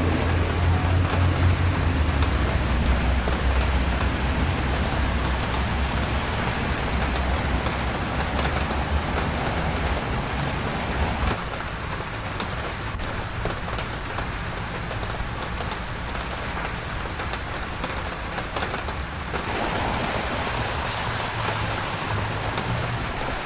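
Steady rain falling on a city street, with the hiss and low rumble of traffic on wet pavement; the rumble is heavier through the first half and eases about halfway through.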